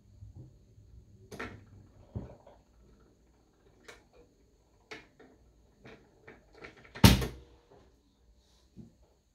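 Automatic turntable at the end of a 45 rpm record: the tonearm mechanism lifts and returns to its rest with a series of irregular clicks and knocks, then a single loud clunk about seven seconds in.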